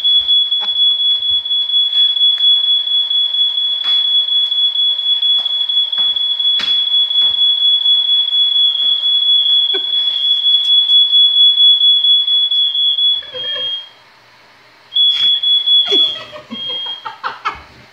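Household smoke alarm sounding one steady, loud, high-pitched tone, set off by smoke from fish cooking in a 500-degree oven. It cuts off about 13 seconds in, then gives a few short beeps near the end.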